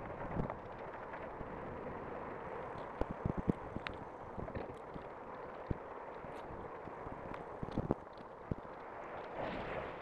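Steady rush of wind noise over a bicycle-mounted microphone, with the rattle of the bike rolling on a paved path and scattered sharp knocks from bumps, a cluster a bit after three seconds and another near eight seconds.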